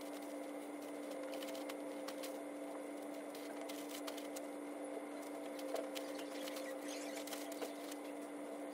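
Thin plastic bag rustling and crinkling as folded garments are lifted and handled inside it, with faint irregular clicks, over a steady low hum.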